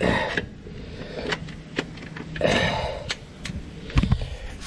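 Metal clinks and scrapes of socket extensions and a bolt being handled and fitted, with a dull knock about four seconds in.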